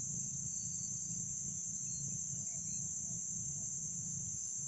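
Steady, unbroken high-pitched insect chirring, over a low steady rumble.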